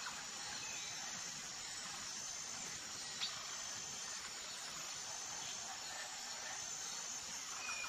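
Faint, steady outdoor ambience: a hiss with a few faint, high insect chirps and one small tick about three seconds in.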